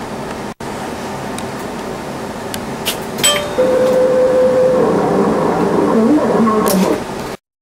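Scale-model traction lift's DC motor and worm-gear sheave drive running: a steady hum, then from about three and a half seconds a louder whine that holds one pitch before wavering up and down, cutting off abruptly near the end.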